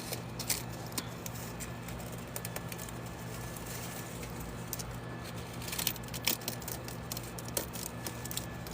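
A steady low hum with scattered light clicks and rustles, a few of them louder around the middle.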